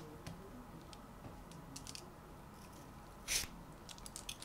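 Raw vegetable being shaved into thin slices with a peeler over a wooden cutting board: a few short, crisp scrapes, the loudest about three seconds in, then a quick run of small ones near the end.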